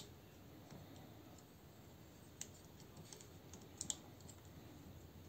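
Faint clicks and taps of hard plastic toy parts being handled as a gun accessory is pegged onto a transforming robot figure's arm, with a sharper click about two and a half seconds in and a quick pair of clicks near four seconds.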